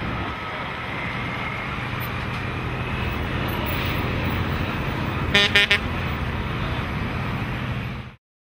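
Semi truck's diesel engine running as the rig pulls away, with a quick run of about three air-horn blasts roughly five and a half seconds in. The sound cuts off suddenly near the end.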